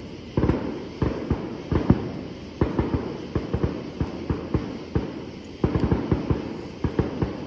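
Distant fireworks going off in a rapid run of booms and cracks, several a second and thickest just past the middle, each trailing off in an echo.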